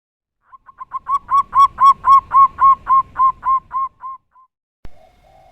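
Zebra dove (perkutut) giving a rapid series of about fifteen short coos, about four a second. The coos build up, then slow slightly and fade away. Near the end there is a single sharp click.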